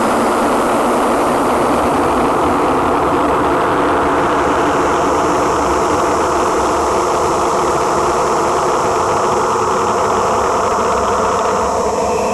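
Industrial noise music: a loud, steady wall of filtered noise with faint held tones inside it, which drops away near the end.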